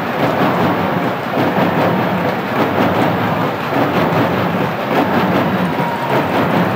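A large crowd applauding: a steady, dense clatter of many hands.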